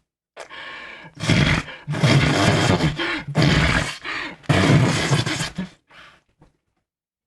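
A person making imitation fart sounds: a quieter buzzing rasp, then four loud blown bursts of about half a second to a second each, and two short faint puffs near the end.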